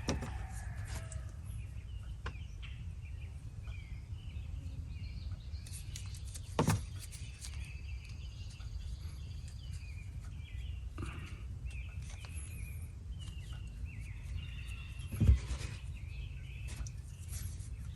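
Outdoor background: a steady low rumble with birds chirping on and off. Two short knocks, about seven and fifteen seconds in.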